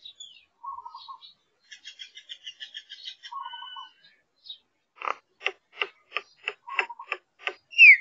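Birds calling: a fast chattering trill and a short whistled note, then a run of about eight sharp repeated notes, roughly three a second, ending in a loud falling whistle.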